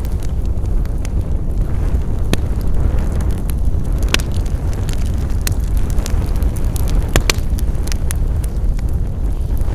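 Wood fire burning with a steady low rumble and scattered sharp crackles and pops, a few of them louder.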